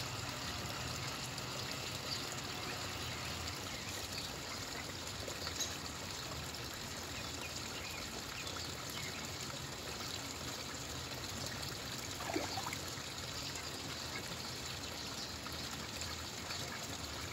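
Steady trickle of running water at a garden pond, with a few faint splashes as Rouen ducks dabble at the surface hunting goldfish.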